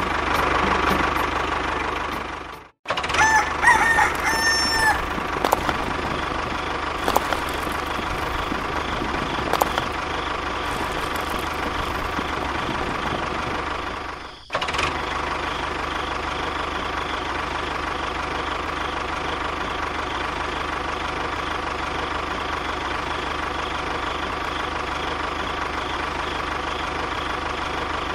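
Small engine running steadily, with a rooster crowing once about three and a half seconds in. The engine sound cuts out briefly twice, near three seconds and near fourteen seconds.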